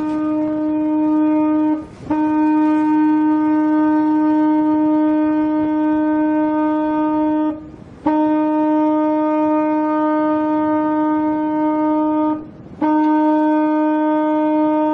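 Ship's horn sounding a run of long blasts, each several seconds long at one steady pitch, with short breaks between them.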